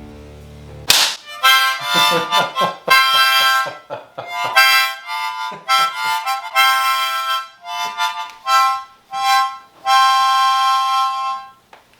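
A harmonica blown hard in ragged, uneven bursts of chords, starting abruptly about a second in and going on for roughly ten seconds. It is the player's pain reaction to being struck on the arm with a wooden spatula.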